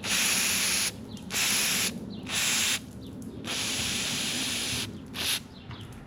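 Aerosol can of brake cleaner spraying in about five hissing bursts, the longest about a second and a half near the middle, flushing dirt out of motorcycle turn signal switch parts.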